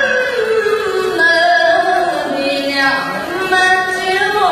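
A woman's voice chanting the Quran in melodic recitation: long held notes that slide slowly downward, with ornamented turns and a short break a little past three seconds before the next phrase.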